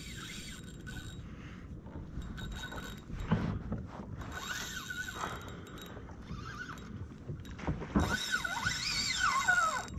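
Spinning reel's drag buzzing as a hooked fish pulls line off. Its pitch rises and falls with the pull and it is loudest near the end.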